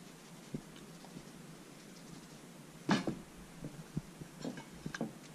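Quiet handling noises: a few faint, scattered taps and a brief louder rustle about three seconds in, as a whole raw fish is moved about on a ceramic plate.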